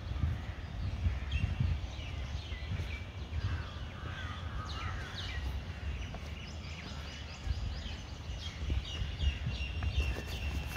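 Several birds chirping and calling, with a run of falling call notes about four to five seconds in and quick repeated chirps near the end, over a steady low rumble.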